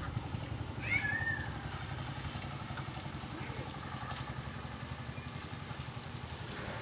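Steady low rumble with one short, high call about a second in that falls in pitch.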